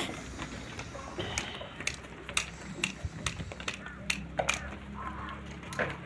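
Sheep hooves clicking and scuffing on concrete and stones as a flock jostles about, a rapid scatter of sharp little knocks.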